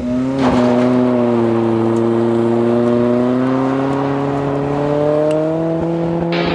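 1990s Nissan Hardbody pickup's engine held at high revs during a one-wheel peel on gravel, one rear wheel spinning as the truck pulls away. The engine note is loud and steady, its pitch climbing slowly over several seconds.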